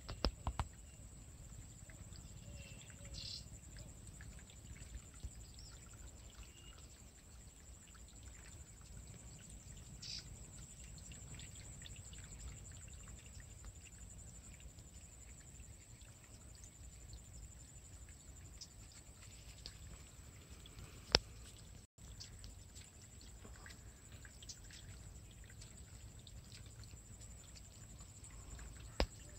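Quiet rural outdoor ambience: a steady high thin whine, low wind rumble and a few faint bird chirps, with a sharp click about two-thirds of the way through and another near the end.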